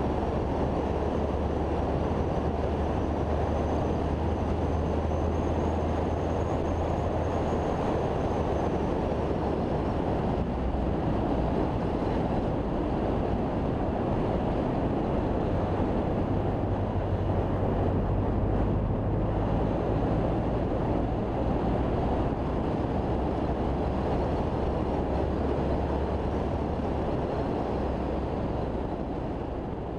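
Car driving at steady speed, heard from inside the cabin: a low engine drone under dense road and wind noise, the engine note changing pitch a couple of times. The sound fades down near the end.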